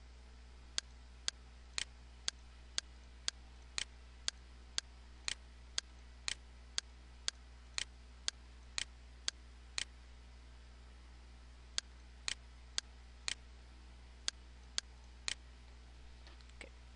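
Computer mouse clicks, evenly paced at about two a second, with a pause of about two seconds after the middle, stopping shortly before the end. A low steady hum runs underneath.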